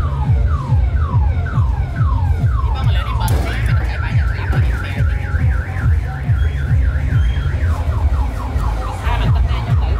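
Electronic dance music with a steady heavy beat, and over it a loud siren-like electronic whoop that cycles like a car alarm: falling sweeps about three a second, switching a little over three seconds in to fast rising chirps about four a second, then back to falling sweeps near the end.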